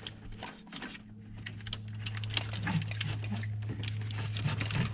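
Hands working an A/C line and accumulator loose in a truck's engine bay: scattered clicks, rattles and scrapes of plastic and metal parts and hoses. A steady low hum comes up about a second in.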